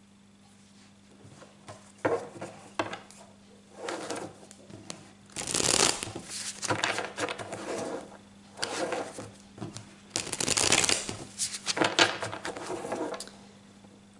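A deck of tarot cards being shuffled by hand, in a series of bursts. It starts about two seconds in, with the loudest bursts around six and eleven seconds in.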